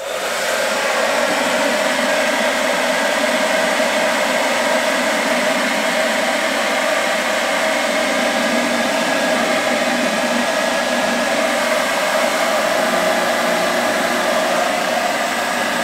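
Handheld hair dryer on its warm setting kicks on at the start, then runs steadily: a constant rush of blowing air with a steady motor whine.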